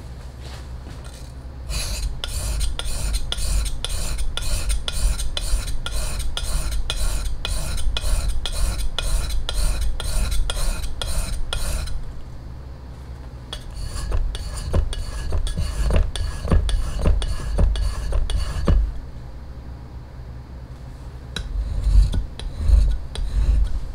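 A knife blade being stroked back and forth on a whetstone: a steady rhythm of gritty scraping strokes, about two or three a second. The strokes pause about halfway through, resume less evenly, and end with a few louder strokes.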